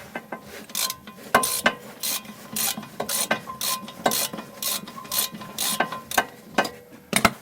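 Ratchet wrench clicking in repeated short strokes, about two a second, as it undoes the lower bolt of a front brake caliper.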